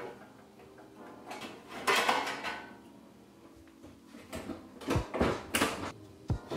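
Handling noise from an old built-in dishwasher being taken out: a scraping clatter, then several sharp clunks as its door is swung open and the unit is handled.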